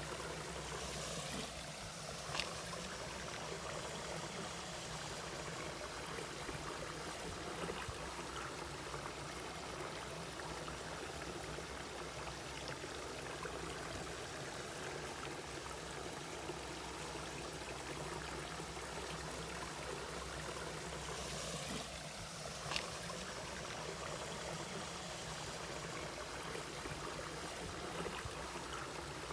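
Mountain valley stream flowing steadily, with two brief sharp clicks, one near the start and one about two-thirds of the way through.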